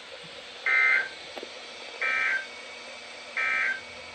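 Emergency Alert System end-of-message signal: three short bursts of warbling SAME digital data tones, each under half a second and about 1.4 s apart, marking the end of the alert message.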